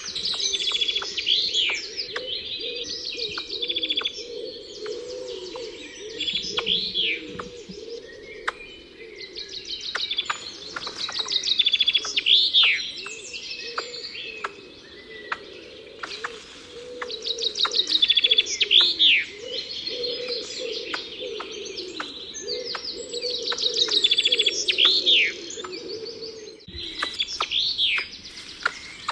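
A songbird singing the same phrase over and over, about every six seconds: a fast trill ending in a sharp sweeping note. Other birds call beneath it.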